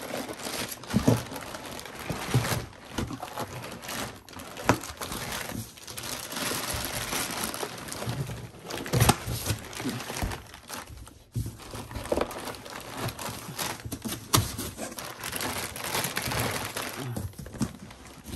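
Clear plastic wrapping around an inverter crinkling and rustling as it is pulled back by hand, with a few louder knocks as the packaging and unit shift in the cardboard box.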